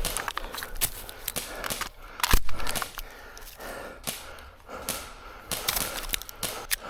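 Airsoft guns firing: scattered single shots and short strings of cracks, one sharp loud shot about two seconds in.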